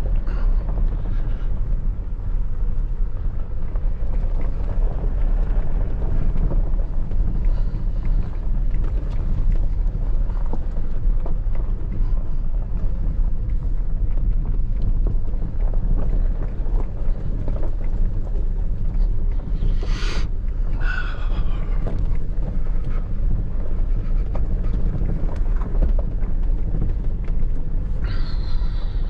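Inside a truck's cab on a rough dirt road: a steady low rumble of the engine and tyres with road noise. Two brief high-pitched sounds cut through, about two-thirds of the way through and again near the end.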